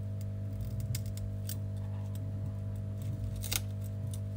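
A metal blade scraping broken back glass off an iPhone 12 mini's housing: a few sharp clicks and scrapes of steel on glass, the loudest about three and a half seconds in, over a steady low hum.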